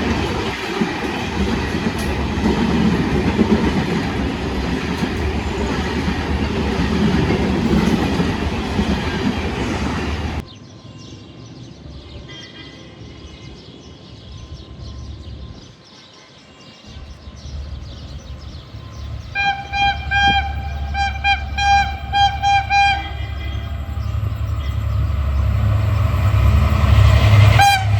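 A train passing close by with a loud rumble and rattle, which cuts off abruptly about ten seconds in. Then a train horn sounds, faintly at first and later as a run of short, loud blasts, while the low rumble of an approaching train grows louder toward the end.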